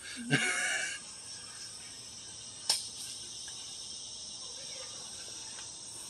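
Steady high-pitched chorus of insects. A short burst of a person's voice comes just after the start, and a single sharp click comes about three seconds in.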